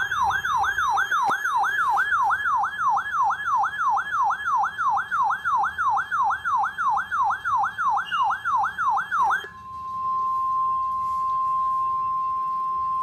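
Emergency alert tones for a severe thunderstorm warning. A loud siren-like warble sweeps up and down about three times a second for roughly nine seconds, then gives way to one steady high tone that holds for about three seconds and cuts off. These are the attention signal that comes before the spoken warning.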